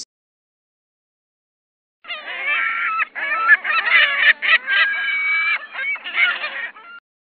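Large birds honking, many calls overlapping, starting about two seconds in after silence and lasting about five seconds.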